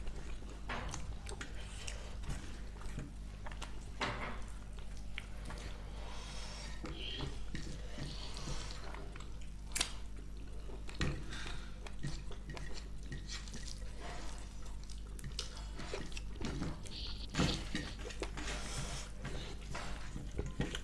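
Close-up eating sounds from a meal of meat curry and rice: wet chewing and mouth clicks, with a few sharper clicks as of a plate or utensil, over a steady low hum.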